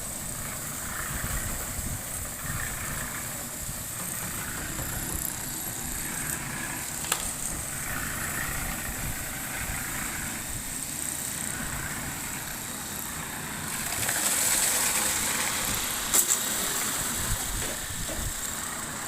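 Excavator engine running steadily, with a stretch of louder hissing noise about two-thirds of the way through and a few sharp clicks or knocks.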